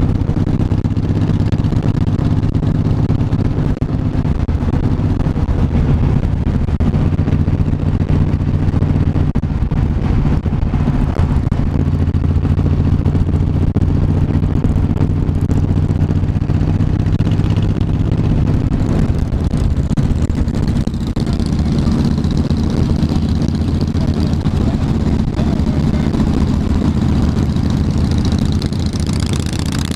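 Cruiser motorcycle engine running at a steady road speed, heard from on the moving bike. The engine note shifts about two-thirds of the way through, and near the end another motorcycle rides close alongside.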